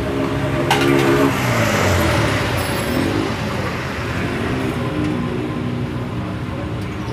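An engine running, its pitch holding and then rising and falling, with a sharp metallic tool click about a second in.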